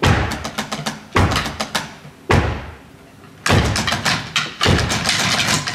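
Drumsticks striking snare drums in short flurries of rapid strokes, with a single hit about two seconds in and a brief lull after it, then a denser run of strokes from many players starting about three and a half seconds in.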